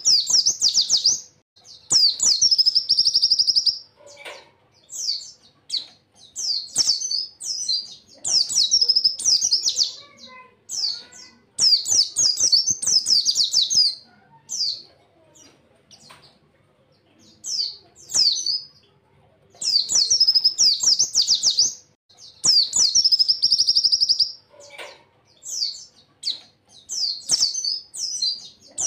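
Pleci white-eye singing: fast, high twittering and trilled phrases of one to two seconds, repeated over and over with short pauses between. These are the rapid song bursts that pleci keepers call "tembakan" (shots).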